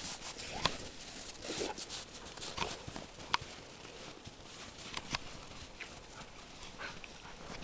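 A group of dogs moving about in snow: paws shuffling and crunching, with a few scattered sharp clicks.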